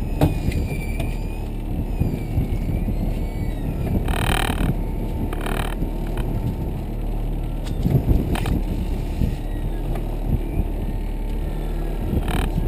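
Boat motor running steadily at trolling speed, with a few short bursts of hissing noise about four and five and a half seconds in.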